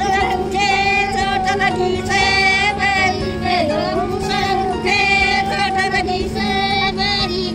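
A woman's voice singing a melodic song in long, wavering phrases, over a steady low hum.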